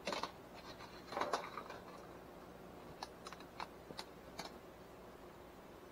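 Thin bare ground wire being wrapped by hand around a plant stem: light scattered clicks and rustles, a short cluster about a second in, then a few single ticks.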